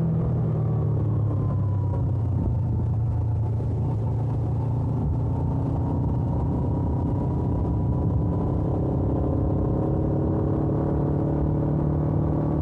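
Suzuki GS500F's parallel-twin engine through its stock exhaust, running steadily while the bike is ridden. Its pitch dips slightly about two seconds in, then rises slowly.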